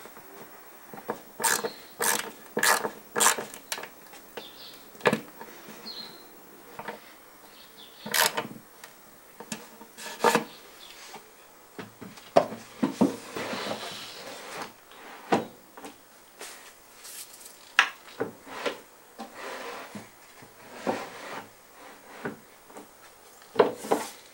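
Hand-fitting and testing a push-to-open latch: sharp clicks and wooden knocks, then a plywood storage box sliding in and out of its cabinet opening with wood rubbing on wood and bumps as it seats. The latch clicks as the box is pushed in.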